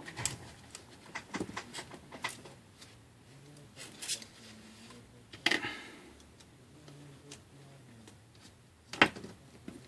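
Small scattered clicks and taps of tweezers and a pry tool on the iPhone 5's frame and ribbon-cable connectors while the connectors are seated, with one louder sharp click about nine seconds in.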